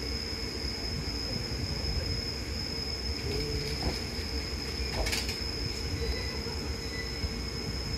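Enshu Railway 2000-series electric train pulling slowly into the station, its wheels and motors giving a steady low rumble, with a sharp click about five seconds in.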